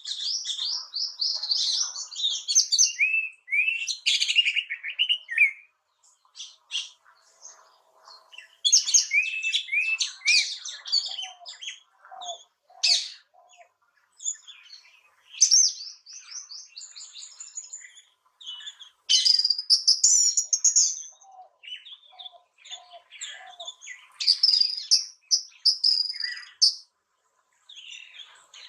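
Bird song: bursts of quick, varied chirps and whistled phrases, with short pauses between them.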